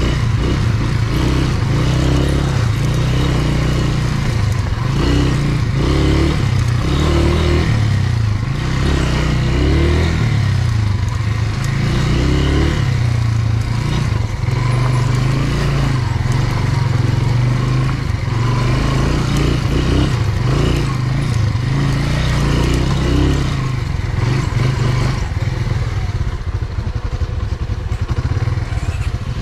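Dirt bike engine running at low trail speed, heard from on the bike, its note rising and falling irregularly as the throttle is worked.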